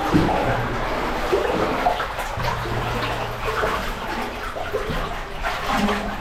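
Water sloshing and splashing in a cave passage, with irregular splashes over a steady wash of water noise.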